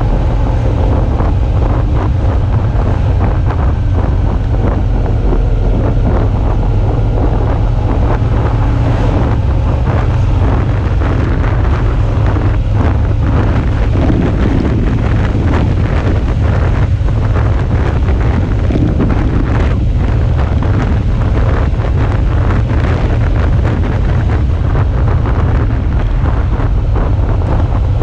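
Steady wind buffeting on the microphone of a moving Suzuki V-Strom 650 motorcycle, with the bike's V-twin engine running underneath at cruising speed.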